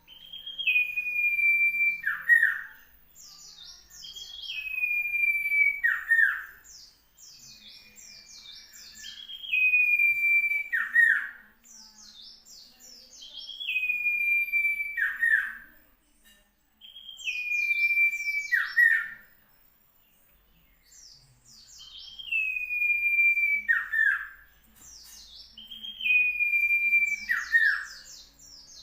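Common iora (cipow) singing: a long clear whistle that steps down in pitch and holds, ending in a few quick falling notes, repeated seven times about every four seconds. Rapid high chirps fill the gaps between phrases.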